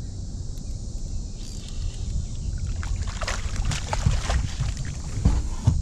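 Water splashing and sloshing around a kayak, the splashes growing busier about halfway through, with a couple of thumps near the end, over a steady low rumble.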